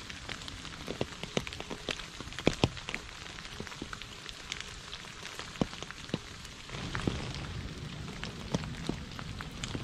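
Rain falling into a shallow puddle on a leaf-covered path: a steady hiss of rain with many separate drops striking the water, several a second. A low rumble comes in about two-thirds of the way through.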